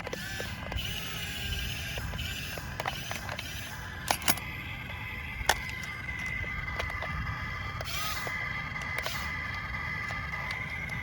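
Small electric gear motors of a toy RC excavator whirring in short spurts, with a few sharp clicks and a steady high whine.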